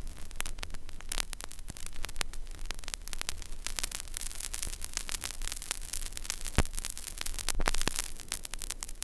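Vinyl record surface noise: a dense, irregular crackle of clicks and pops over a low steady hum, with no music.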